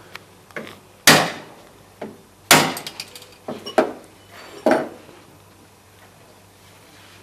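Mallet knocking on the forearm of a tennis-racket stringing machine's turntable: about eight sharp taps over the first five seconds, two of them much louder, tapping the arm into its correct position.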